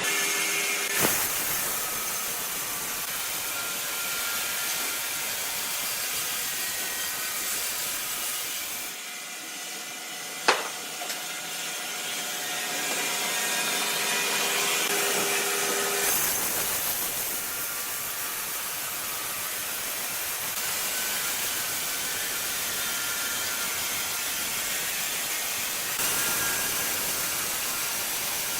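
Sawmill machinery running and sawing wood, a steady noisy whir whose sound changes abruptly several times, with one sharp knock about ten seconds in.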